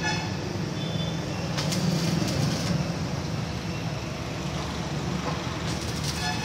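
Electric arc welding on the steel bars of a gate frame: two short crackling bursts of the arc as tack welds are struck, about a second and a half in and again near the end, over a steady low rumble.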